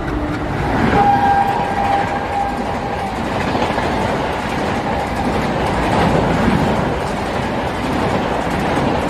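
Red LHB coaches of a Rajdhani Express rushing past at speed, with a loud, steady rush of wheels on rails and air. A horn ends at the very start, and a high steady whine follows about a second in and lasts some two seconds.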